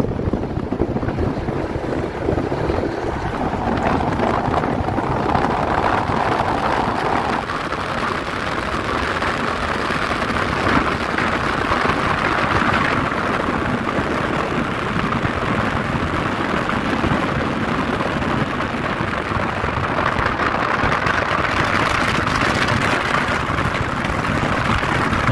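Steady road and wind noise from travelling at expressway speed alongside a semi-trailer tanker truck: tyre roar and rushing air, with wind on the microphone.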